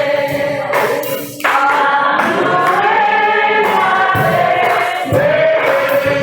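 Congregation and choir singing a gospel song together, voices holding long notes.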